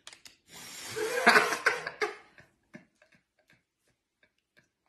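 A person blowing hard at a straw in the neck of a glass soda bottle: a forceful breathy rush of air lasting over a second, with a few small clicks and ticks around it.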